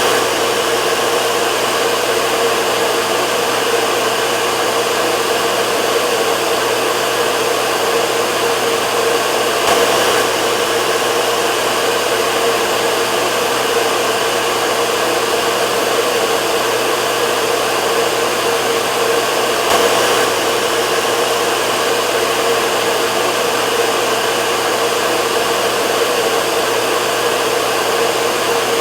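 Hair dryer running steadily: a constant rush of blown air with a motor hum, swelling slightly about every ten seconds.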